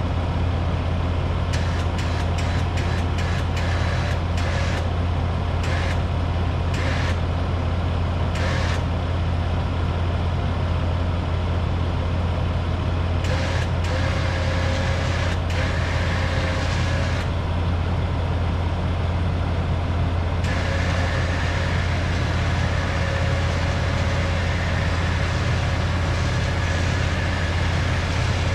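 KFI Stealth 4500 electric winch on a Polaris RZR XP Turbo running steadily under heavy load, reeling in its line as it drags a full-size pickup truck. It makes a continuous low hum with a faint whine above it.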